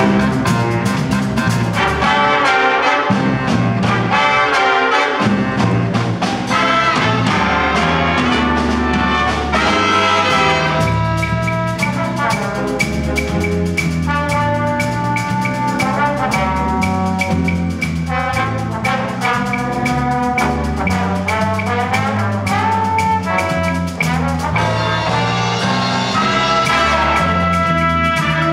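High school jazz big band playing a swing tune: saxophone, trumpet and trombone sections over piano, guitar and drum kit. A bass line steps along underneath at about two notes a second while the drummer keeps time on the cymbals.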